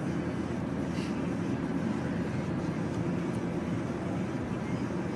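Steady low road and engine noise of a car being driven, heard from inside the cabin.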